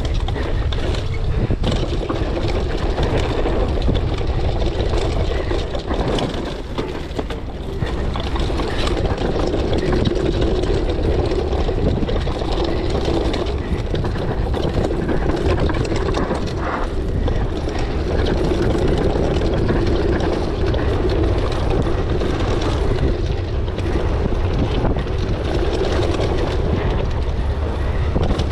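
Mountain bike riding down a wet, slippery dirt trail: steady rushing noise of wind on the microphone with the bike's tyres and frame rattling underneath.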